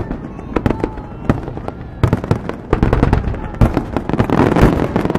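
Fireworks display: aerial shells bursting one after another in sharp bangs and pops, coming much thicker and louder about two seconds in.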